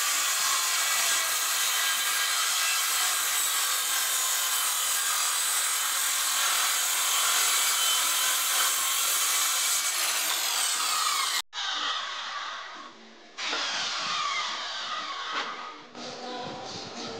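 Handheld circular saw ripping lengthwise along a wooden plank, a steady loud cut whose pitch falls away as the blade runs down about eleven seconds in. A shorter stretch of sawing follows, then the board being handled.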